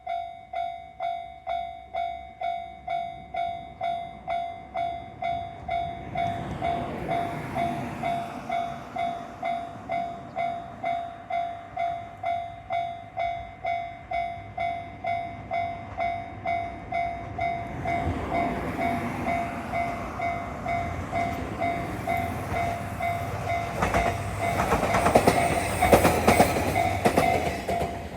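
A Japanese level-crossing warning alarm rings its repeated electronic ding about every half second as a JR Kyushu YC1 series hybrid railcar approaches and passes. The train's running noise builds from about six seconds in and is loudest near the end, with a clatter of wheels over the rail joints.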